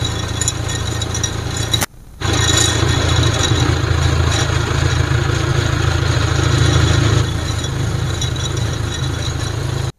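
Backhoe loader's diesel engine running steadily as its front bucket is raised and tipped, with sand scraping and pouring off the bucket onto a pile. The sound drops out briefly about two seconds in, and the engine is somewhat louder from then until a few seconds before the end.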